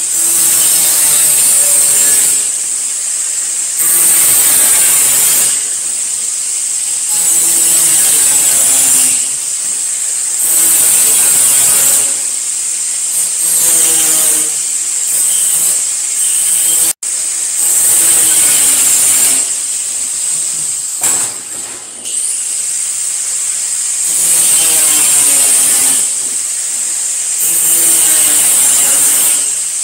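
Angle grinder biting into thin sheet steel in repeated passes about every two to three seconds. Each pass brings a harsh high hiss, and the motor's pitch falls under the load before it eases off between passes.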